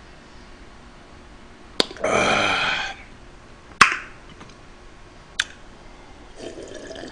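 A man drinking a fizzy cherry-grape soda: sharp mouth clicks and lip smacks, a loud breathy throat sound lasting about a second, and softer gulping as he drinks again near the end.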